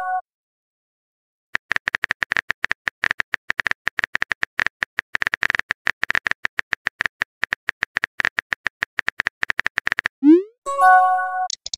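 Phone-keyboard typing sound effect: rapid tapping clicks that run for about eight seconds. They stop, and then come a short rising whoosh and a bright chime of several tones, the sound of a new text message popping in.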